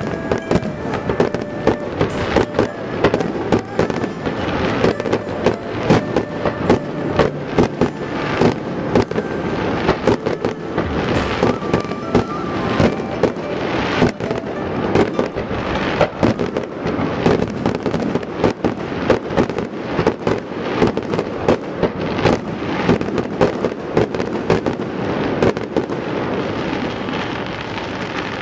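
Fireworks going off in a dense, irregular string of sharp bangs and crackles, thinning out near the end.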